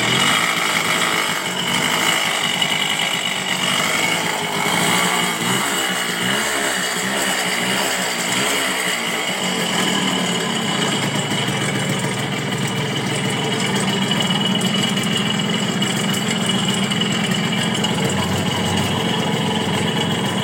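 Suzuki A100's two-stroke single-cylinder engine running with a loud rattle, revved a few times in the first half and then settling to a steadier idle. The mechanic takes the rattle for a worn piston and damaged crankshaft bearings.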